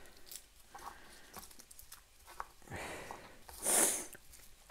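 Faint ticks and crackle of papery garlic skin being peeled off the cloves by hand, then a short, loud breath through the nose a little past the middle.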